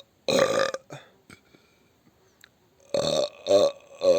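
A person burping: one burp, a pause of about two seconds, then three short burps in quick succession.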